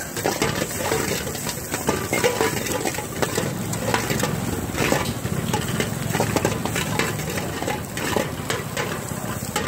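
Food being stirred in a cooking pan: irregular clinks and scrapes of a utensil against the pan over a steady frying sizzle.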